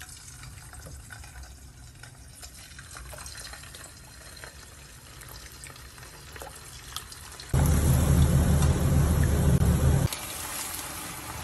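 Marinated chicken pieces sizzling in hot oil as they are dropped in one by one. About two-thirds of the way in, a sudden much louder spell of deep frying lasts a couple of seconds, then settles to a steady sizzle.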